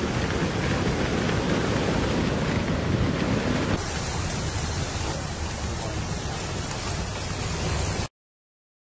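Floodwater rushing down a flooded dirt road in a steady, loud rush of water. About four seconds in it changes abruptly to a heavy rain downpour. The downpour cuts off suddenly about a second before the end.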